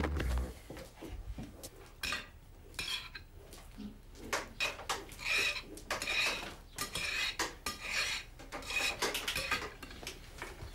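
Metal forks clinking and scraping on ceramic plates during a meal, with many short scrapes and taps that come thicker in the second half.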